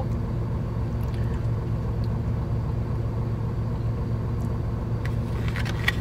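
Diesel engine of a Hino Profia truck idling, a steady low hum heard from inside the cab, with a few short clicks near the end.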